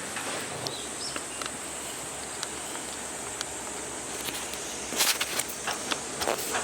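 Insects singing steadily in the surrounding forest, a continuous high-pitched drone. Near the end comes a short cluster of sharp clicks and knocks as camp gear is handled during packing up.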